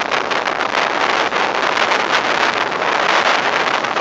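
Strong tropical-storm wind buffeting the microphone, a loud steady rushing noise without lulls.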